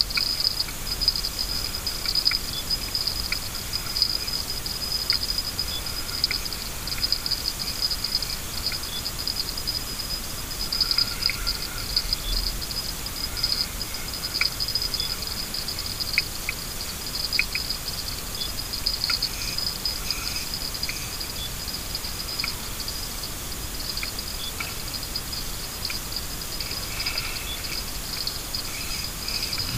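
Outdoor riverbank ambience: a steady, high-pitched, rapidly flickering chirring, with scattered short chirps and ticks over it.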